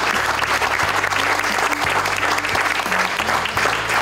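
Audience applauding steadily, with background music underneath.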